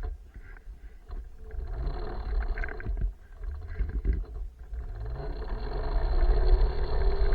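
Small electric minibike's motor whining, rising in pitch as it speeds up in the second half and then holding steady, over low wind rumble on the microphone.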